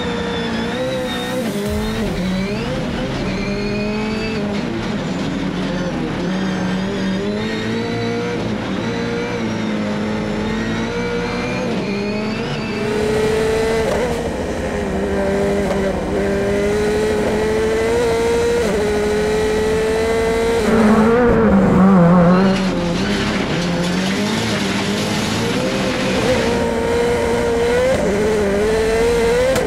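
The Airslayer, an 862-horsepower Subaru WRX STI hillclimb car, driven hard. Its engine rises and falls in pitch through constant gear changes and corners, with tyres squealing. About two thirds of the way through there is a louder, noisier stretch.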